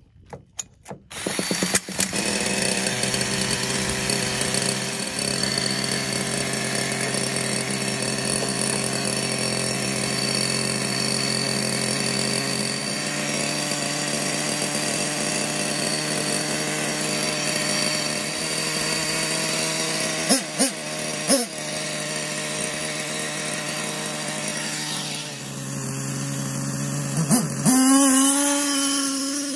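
Hot Bodies Lightning GT's nitro glow engine, spun over with a cordless drill starter, sputters and catches within the first couple of seconds, then idles steadily with a high buzzing tone. Near the end it revs up with rising pitch as the truck pulls away.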